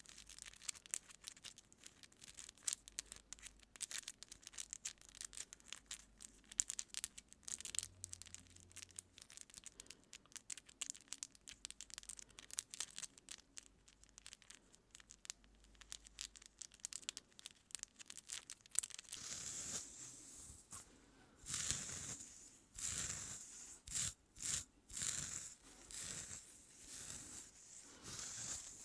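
Long acrylic fingernails picking and scratching through hair close to the microphone, a dense fine crackling. About 19 s in this gives way to louder separate strokes of a wooden comb drawn through the hair, about one a second.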